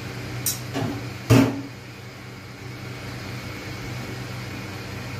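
A steady motor hum runs throughout. Two light clicks come early, then one louder sharp knock just over a second in.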